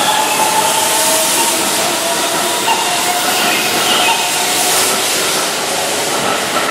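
Keihan 13000 series electric commuter train running past along a station platform: a loud rushing noise of wheels and air with a faint whine on top. The tail car passes near the end.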